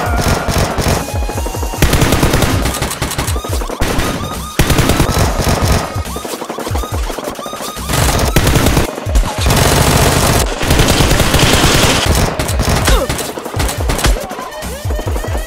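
Rapid bursts of automatic machine-gun fire, edited-in gunfire sound effects rather than the blasters' own soft pops, over background music.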